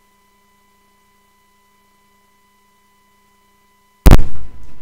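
Faint steady electrical hum with a thin high tone, then about four seconds in one sudden, very loud thump that dies away in a short noisy tail.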